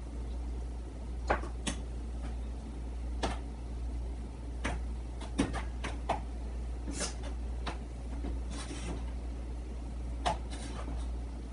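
Metal cooking utensils clinking and scraping against a frying pan on a gas stove as food is stirred and tossed, about a dozen sharp clicks scattered through. A steady low hum runs underneath.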